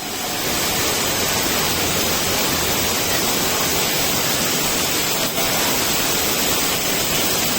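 Heavy rain pouring down, a steady, loud hiss.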